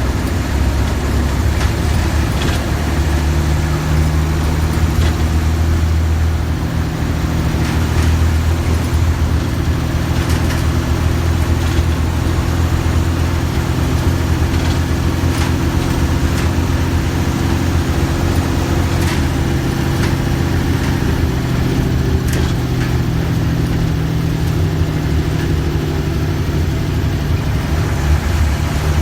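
Mercedes-Benz OF-1315 bus's diesel engine running steadily with a deep, low note, its pitch shifting slightly now and then, with a few faint clicks over it.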